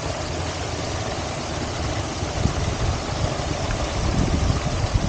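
Wind buffeting the microphone outdoors: a steady hiss with a fluttering low rumble that grows stronger near the end.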